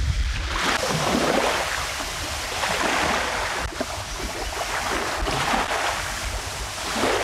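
Strong wind buffeting the microphone with a steady rumble, over the rush of wind-driven waves on the reservoir.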